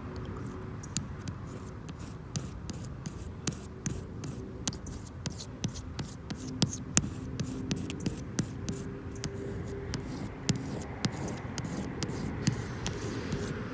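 Excess cured windshield-repair resin being scraped off the windshield glass: a long run of irregular sharp scratchy ticks, thickest in the middle.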